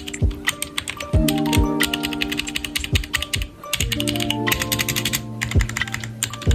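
Typing on a HyperX 60% keyboard: a fast run of key clicks with a short pause about halfway through, over background music.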